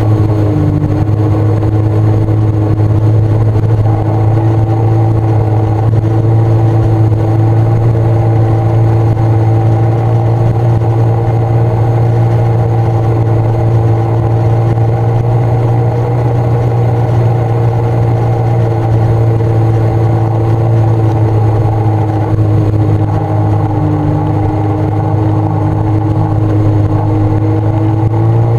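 Sea-Doo personal watercraft engine running steadily at cruising speed, heard through a waterproof camera case. Its pitch holds level, dips a little for a few seconds near the end, then picks up again.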